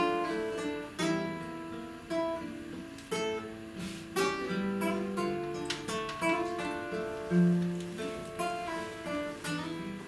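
Classical nylon-string guitar played solo: plucked melody notes over chords, with several chords struck hard in the course of the passage.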